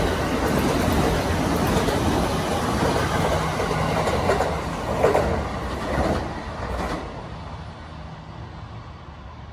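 JR East E353 series electric train passing through the station at speed without stopping: a steady rumble of wheels on rail with clicks over the rail joints. It fades after about seven seconds as the last car goes by.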